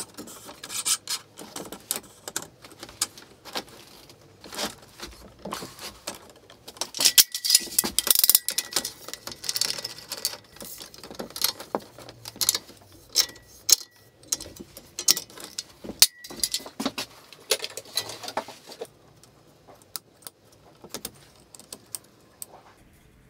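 Steel rods and plastic parts of an Anet A8 3D printer kit being handled and fitted together by hand, making a run of irregular clicks, clacks and rattles. The sounds are busiest around the middle, with a faint thin whine for several seconds, and thin out to a few light clicks near the end.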